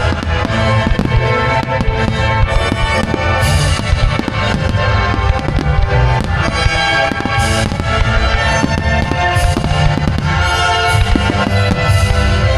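Fireworks going off in a rapid, irregular string of bangs and crackles over loud music.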